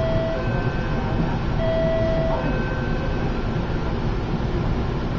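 Two-note electronic alarm chime, a lower note followed by a higher one, sounding twice in the first three seconds over a steady rumbling noise, typical of a hospital patient monitor.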